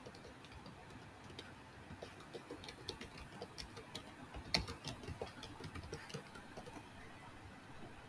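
Faint, irregular clicking of computer keyboard keys being typed, with one louder key press about four and a half seconds in.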